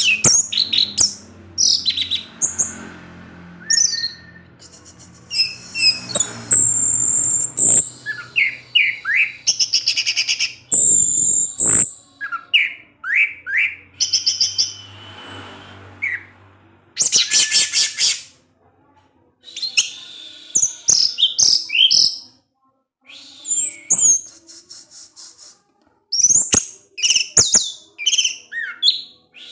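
Orange-headed thrush singing a long, varied song: quick whistled sweeps and rapid chattering trills, one phrase after another with brief pauses.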